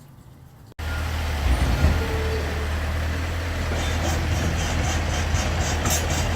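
A motor vehicle engine running steadily with a low hum. It starts abruptly about a second in, and a fast regular ticking joins it about halfway through.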